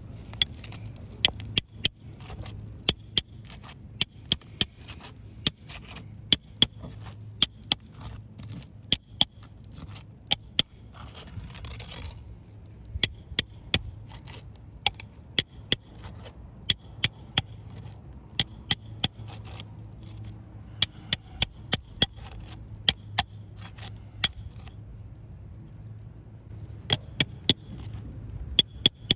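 A flat metal pry bar worked under three-tab asphalt shingle tabs to break their seal: sharp clicks and taps in irregular clusters, with a short scraping rasp about eleven seconds in. Near the end a hammer taps the bar to drive it under.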